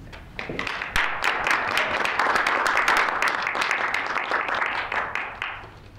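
Audience applauding: a dense run of hand claps that starts about half a second in and dies away near the end.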